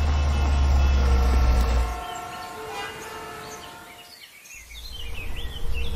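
Car engine and road rumble heard inside the cabin in traffic, with vehicle horns sounding over it. About two seconds in it cuts to a quieter outdoor stretch with birds chirping, and a low rumble returns near the end.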